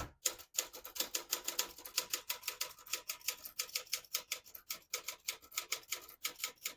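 1975 Olympia SF ultra-portable manual typewriter being typed on at a steady pace: a quick run of sharp key and typebar clacks, several a second, with brief pauses between words.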